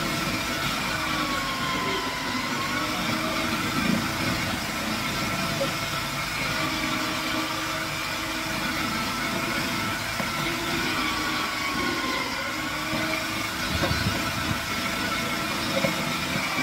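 Electric food-processor squash grater running steadily, its blade shredding pieces of squash as they are pushed down the feed tube. The motor's pitch sags and recovers every few seconds, with a few light knocks.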